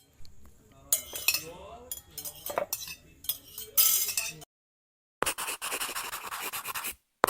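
Cutlery and dishes clinking and clattering, with faint voices underneath. After a brief gap, about two seconds of rapid, even pencil strokes scratching on paper.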